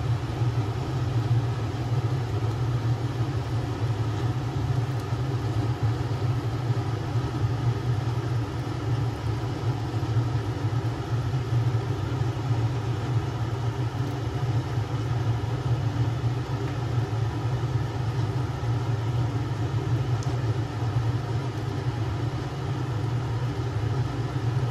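Steady low mechanical hum with an even rushing noise over it, unchanging throughout.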